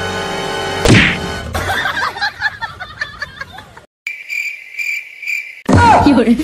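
Music broken by a sharp slap about a second in. Later comes a steady, high, pulsing chirp like crickets for about two seconds, which stops suddenly.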